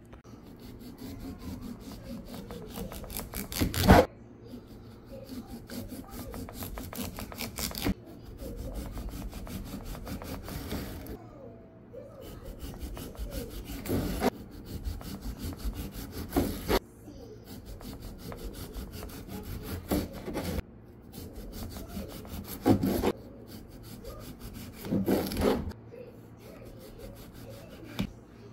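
Serrated knife sawing through a yellow honeydew melon's rind and flesh in repeated rasping strokes, with several sharp knocks along the way.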